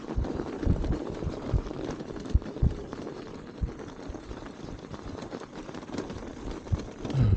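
Electric funbike riding through snow: a steady low rumble broken by irregular low thumps.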